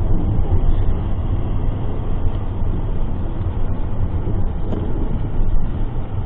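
Steady low rumble of road and engine noise inside a moving car's cabin, picked up by a dashcam microphone.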